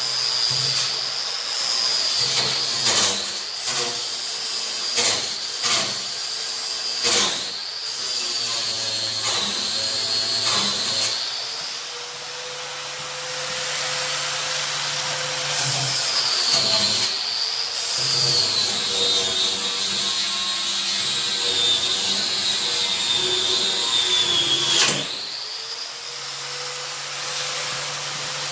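Power grinder grinding down the steel cutting edge of a tractor loader bucket: a steady motor whine that sags in pitch while pressed into the metal and climbs back when eased off. Several sharp knocks come in the first ten seconds.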